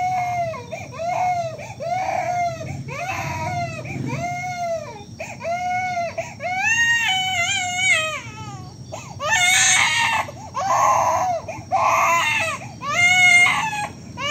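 Baby crying: short rhythmic wails about every two-thirds of a second, then longer, louder, harsher wails in the second half.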